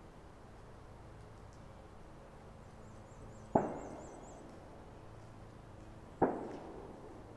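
Two gunshots from a shooting range, about two and a half seconds apart, each a sharp crack followed by a trailing echo.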